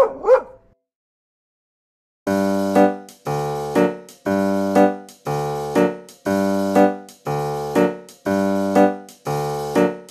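Background music: after a short sound effect and a moment of silence, an electric piano or keyboard plays the same chord pattern about once a second.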